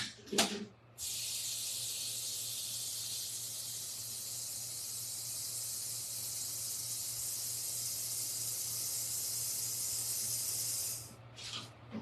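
A steady hiss that starts abruptly about a second in and cuts off near the end, after a couple of short knocks at the start.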